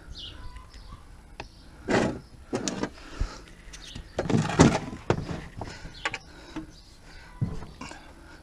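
Handling noises under a car: a plastic oil drain pan being shoved into place on concrete and a square-drive bar being fitted to the oil-pan drain plug, heard as a series of short scrapes and knocks a second or two apart.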